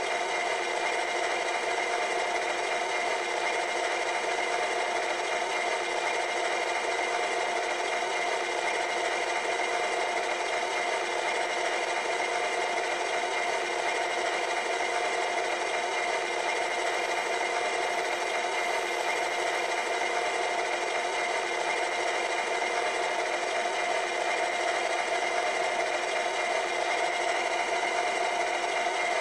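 Sampled diesel locomotive idle from an HO scale E9 model's LokSound 5 sound decoder, played through the model's tiny speaker: a steady, thin engine idle with no deep bass.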